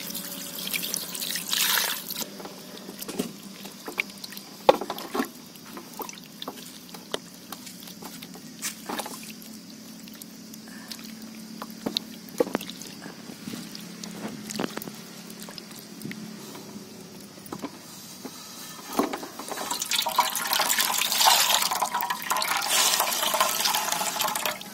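Water poured over fresh chhena curds in a cloth to rinse out the lemon-juice sourness, then scattered clicks and scrapes as the curds are stirred with a spoon. About twenty seconds in comes a louder rush of water squeezed from the cloth bundle and splashing into a metal pot.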